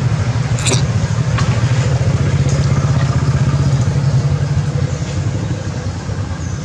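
A steady low engine rumble runs throughout, with a short sharp click about a second in.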